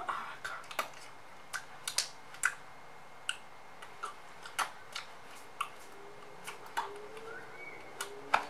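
Irregular sharp clicks and ticks, one or two a second, over a faint background.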